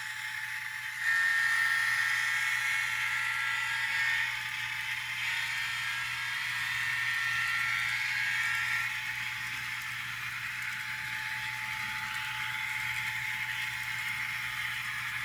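N scale model diesel locomotive running on the track: a steady high-pitched whine over a light hiss and rattle of wheels on rail. The whine drops out briefly about four seconds in and fades out about nine seconds in.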